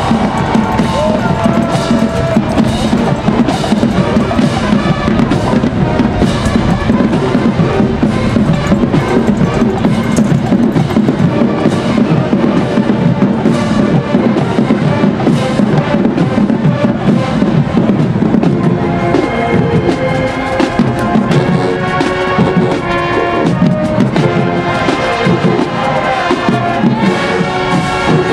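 Marching band playing on the field, its drumline of snare and bass drums driving a steady beat. About two-thirds of the way in, the brass comes through more clearly with held chords over the drums.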